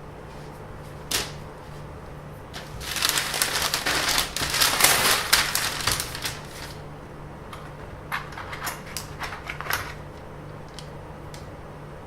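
Rapid clicks and rattling taps: one click about a second in, a dense clatter from about three to seven seconds in, then scattered clicks near the end, over a steady low hum.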